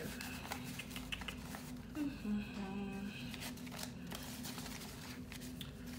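Paper banknotes rustling and flicking as a stack of bills is handled and counted, a run of short crisp paper sounds, with a brief murmured voice about two seconds in.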